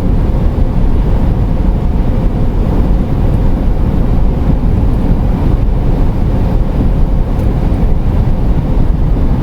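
Steady road and engine noise inside the cab of a moving 2008 Pleasure-Way Ascent camper van, a constant low rumble with no change in speed.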